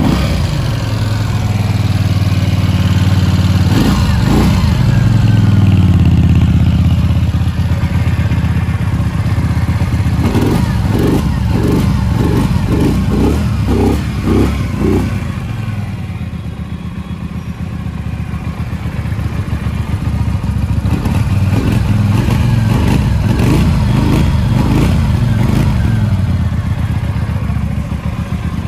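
Keeway V302C's V-twin engine running through its stock exhaust, revved up once and then blipped in quick repeated throttle bursts, about nine in a row, with a second run of blips later on.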